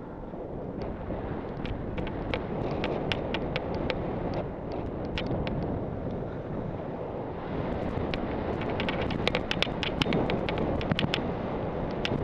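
Wind rushing over a helmet-mounted camera's microphone while skiing downhill, with skis scraping over the snow and frequent sharp clicks that grow denser after about seven seconds.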